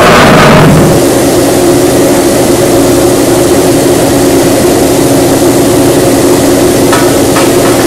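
Screwpactor HD shafted screw compactor running under test, its drive giving a loud steady machine hum with several steady tones. A short rush of noise falls in pitch in the first second, and two faint clicks come near the end.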